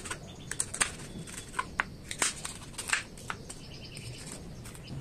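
Kitchen knife slicing a green bell pepper on a wooden chopping board: irregular crisp cuts and taps of the blade on the board, most of them in the first three seconds.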